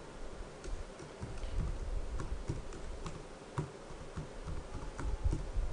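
Typing on a computer keyboard: a run of irregular keystroke clicks entering a short phrase.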